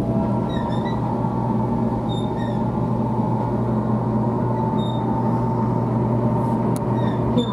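Steady low hum and rumble of a train, with a few faint short squeaks over it.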